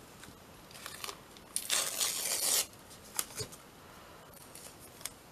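Brown kraft paper tape being torn, a loud rasp lasting just under a second about two seconds in, among small rustles and taps of paper and tape being handled and pressed down.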